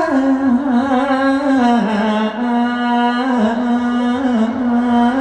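A singing voice over the PA holding long sustained notes, dropping slightly in pitch at the start and again about two seconds in, then held with small wavers.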